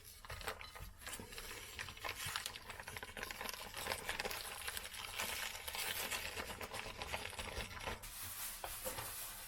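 Faint crinkling and rustling with many small soft clicks as the freshly sous vide-cooked beef short ribs and their plastic vacuum bags are handled.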